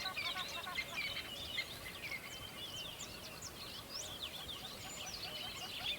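A chorus of many birds chirping at once: a dense tangle of short, quick chirps and whistles, with a lower call repeated evenly underneath.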